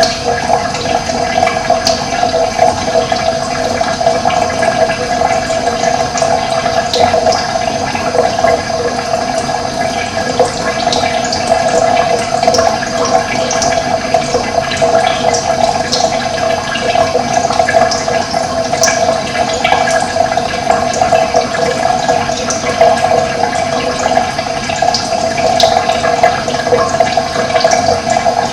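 Running water, a steady rushing sound, with short high ticks scattered through it.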